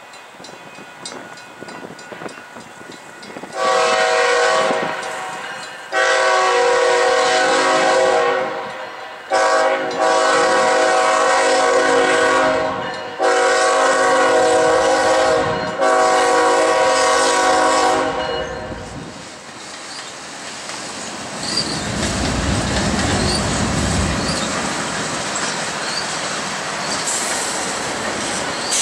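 Horn of a Kansas City Southern GE ES44AC locomotive sounding the grade-crossing signal: two long blasts, a short one, then a long one held with brief breaks until about 18 seconds in. Then the locomotive passes close by with a deep rumble of engine and wheels on the rails.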